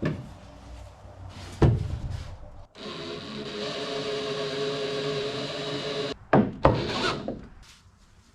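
Workshop woodworking on a plywood boat: sharp knocks and clatter of wooden parts being handled and fitted, with a steady pitched whir for about three seconds in the middle, then two more knocks.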